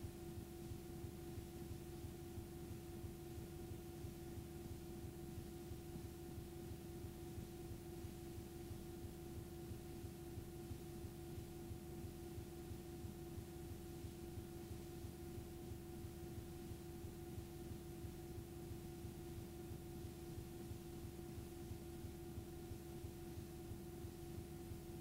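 Playback noise from a blank stretch of videotape: a steady hum with one held tone over faint hiss.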